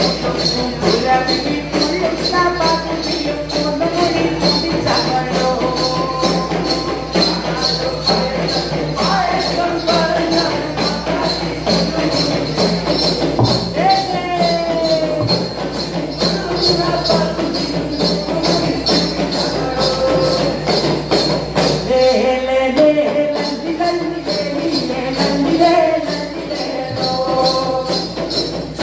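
Malayalam folk song sung by a group of young male voices, with a steady beat on thudi hand drums and the ringing of kaimani hand cymbals.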